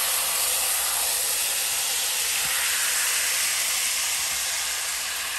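Whole chicken sizzling in oil in a stainless steel wok: a steady hiss, easing slightly near the end, as the bird is turned over with a metal spatula.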